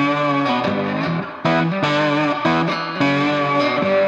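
Music led by guitar, with clear changes of note or chord every half second to a second.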